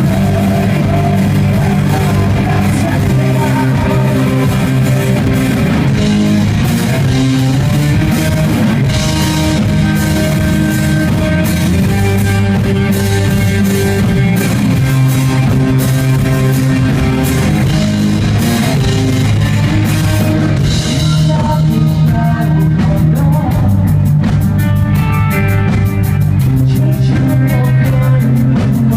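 Rock band playing live, with guitar and drum kit; the texture of the playing changes about two thirds of the way through.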